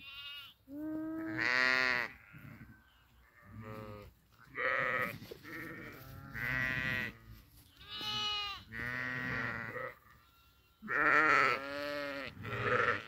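Flock of sheep, ewes with young lambs, bleating: about a dozen separate calls, some high-pitched and some deeper, overlapping at times.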